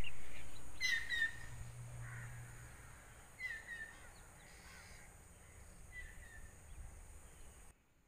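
Crows cawing outdoors: three short, falling calls a couple of seconds apart, over a low steady background hum that fades over the first few seconds.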